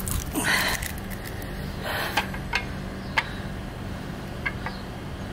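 An egg being broken open by hand over a nonstick frying pan: two short rustling cracks of the shell, then several light clicks as shell and egg touch the pan. A steady low hum runs underneath.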